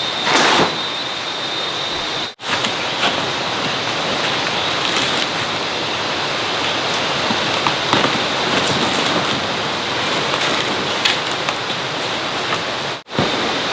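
Steady rain falling, with a thin high tone running through it. The sound cuts out briefly twice.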